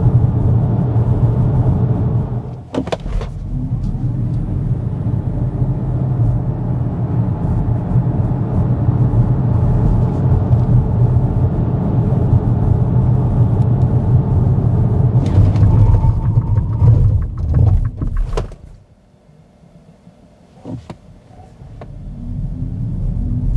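Steady low road and tyre rumble inside the cabin of an Xpeng G6 Performance electric SUV driving at speed, with a few sharp clicks. The rumble drops away abruptly about three quarters of the way through, then builds up again near the end.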